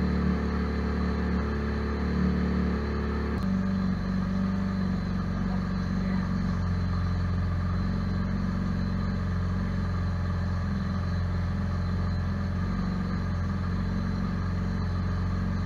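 A GM 3.6-litre LFX V6 running on a stand during its first test run as an LLT-to-LFX swap. It idles steadily, and its note changes abruptly about three seconds in, then holds steady.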